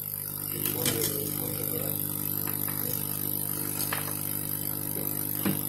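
Steady hum of a running hot-air blower, with a few light clicks as the hard drive's circuit board is pressed into place on the drive.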